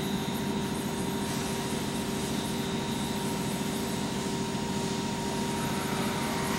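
Bridgeport VMC 800/30 XP2 CNC vertical machining center running with its Z axis being moved: a steady low machine hum with steady whining tones from the axis drive.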